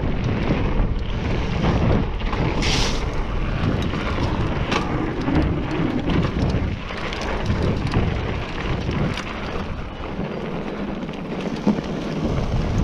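Mountain bike descending a dirt trail: a constant low rumble of wind buffeting the microphone and tyres rolling over dirt and roots, with frequent clicks and knocks from the bike clattering over bumps. There is a brief hiss about three seconds in, and the low rumble eases for a couple of seconds near the end.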